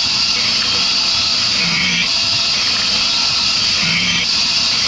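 Small CNC milling machine cutting aluminium, with the mist coolant sprayer hissing steadily. A lower hum swells and fades about every two seconds as the machine works through repeated passes.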